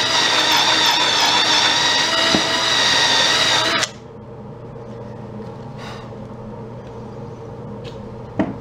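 Power drill with a small hole saw running at a steady speed, a steady whine that cuts off about four seconds in. A single sharp click near the end.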